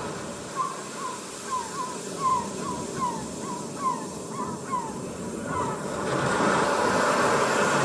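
A bird calling in a quick series of short, falling notes, about three a second, over the steady wash of sea waves. The wave noise swells again near the end as the calls stop.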